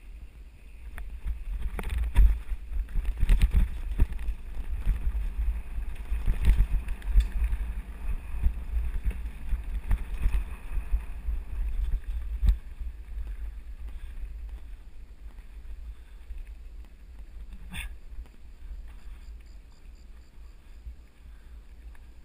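Mountain bike descending a rough dirt singletrack, with wind buffeting the microphone and the rattle and knocks of the bike over bumps. It is loudest and busiest through the first half and settles somewhat after that, with one sharp click near the end.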